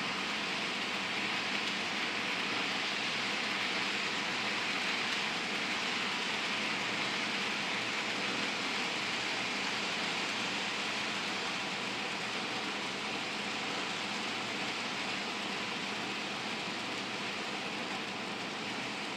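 HO scale model freight train, led by a Life-Like Proto 1000 Southern Pacific NW-2 switcher, running around the track. It makes a steady rolling hiss of small metal wheels on the rails, with a faint even hum underneath.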